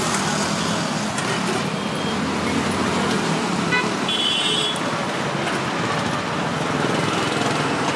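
Steady road traffic noise from passing vehicles, with a brief high-pitched toot about four seconds in.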